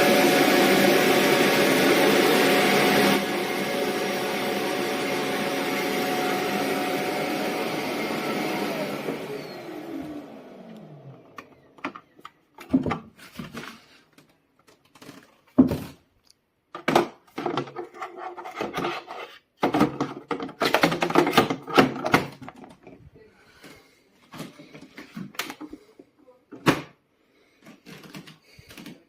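Roborock H60 Ultra vacuum motor running steadily, then switched off about nine seconds in, its pitch falling as it winds down. After that come scattered short clicks and knocks.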